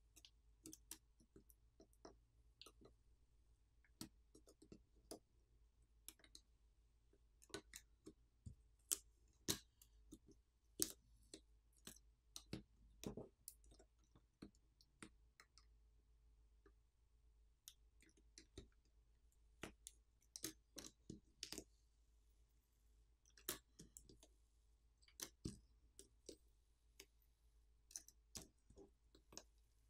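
Faint, irregular clicks and taps of a pry tool and fingers on an opened smartphone's chassis as the padding over its battery is pried up and peeled off, with a quieter pause about halfway through.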